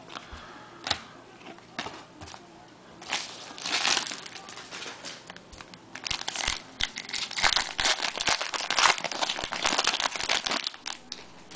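Foil trading-card pack wrapper crinkling and being torn open: a few clicks at first, a short burst of crackling about four seconds in, then a dense run of crinkling from about six seconds in until near the end.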